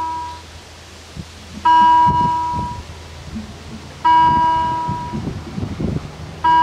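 Level-crossing warning bell striking single dings about every two and a half seconds, each ringing out for about a second, signalling that a train is approaching. A low, irregular rumble sounds between the strikes.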